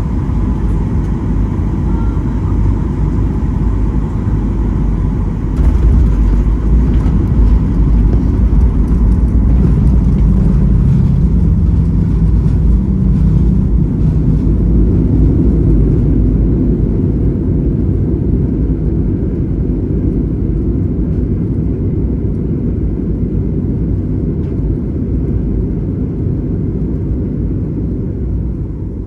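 Boeing 737-800 cabin rumble during landing: a low roar of engines and rolling gear that jumps louder about five seconds in, as on touchdown and reverse thrust, then slowly dies away as the aircraft slows on the runway.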